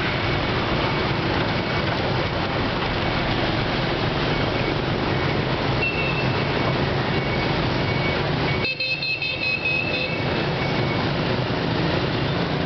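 Steady street traffic of many motorbikes, cars and a city bus running past. A horn beeps briefly about six seconds in, and another horn sounds for about a second near nine seconds in.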